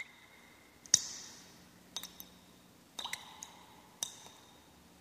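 Water dripping from a tap, one ringing plink about every second, the drop about a second in the loudest.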